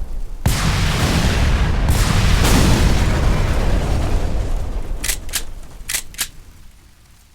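A sudden loud rumbling rush, heavy in the low end, that starts about half a second in and fades away over the last few seconds, with a few sharp clicks near the end.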